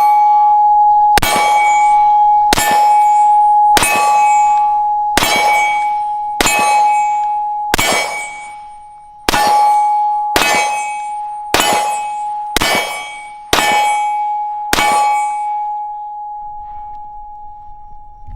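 Springfield XDM Compact 9mm pistol fired at a slow steady pace, about one shot every second and a bit, with a steel target plate ringing on each hit. About a dozen shots, the last about 15 s in, after which the plate's ring fades away.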